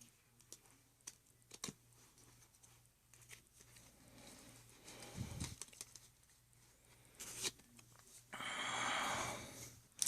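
Foil wrapper of a trading-card booster pack being handled and torn open. A few small clicks and rustles come first, then a longer, louder tearing crinkle near the end.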